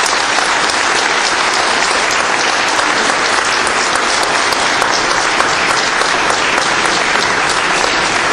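Audience applauding: many hands clapping in a dense, steady stream that holds at one level throughout.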